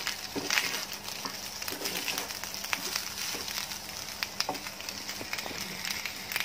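Rice sizzling and crackling as it is stir-fried in a frying pan, with a wooden spatula scraping and knocking against the pan in many short clicks.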